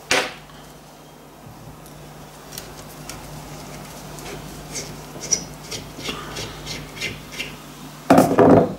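Hand screwdriver backing screws out of an epoxy-coated carbon fibre sheet: faint scattered clicks and scrapes as the screws turn. They were loosened before the epoxy gelled, so they come out fairly easily. A sharp clatter comes just at the start, and a short loud sound near the end.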